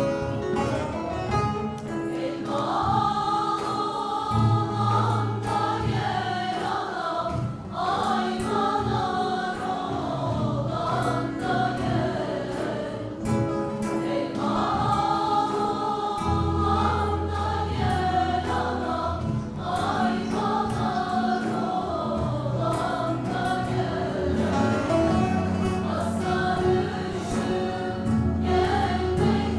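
A Turkish folk music choir singing a türkü in unison over instrumental accompaniment with held bass notes.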